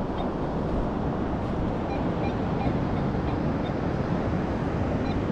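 Steady surf and wind noise on the microphone, with faint short beeps from an XP Deus 2 metal detector recurring as its coil is swept over a target.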